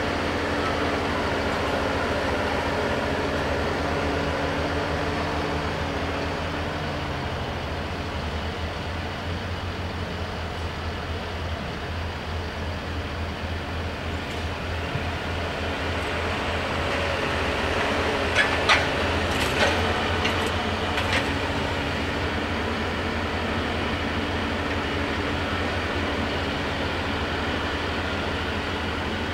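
Tractor engine running steadily while working a silage pit, its pitch shifting, a little fainter as it drives off along the stack and louder again as it comes back. A few sharp knocks about two-thirds of the way through.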